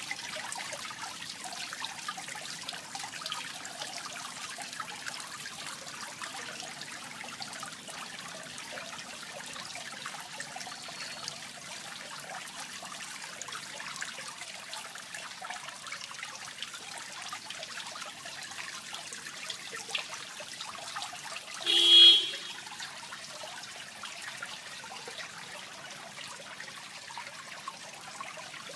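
Water trickling steadily into a fish pond, with a single short horn honk about three-quarters of the way through.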